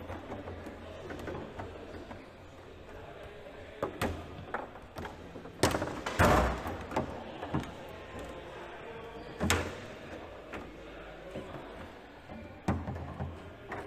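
Foosball rally on a Leonhart table: the ball struck by the rod-mounted player figures and knocking against the table, with rods sliding and clacking. It comes as a scattered run of sharp knocks, the loudest a hard bang about six seconds in.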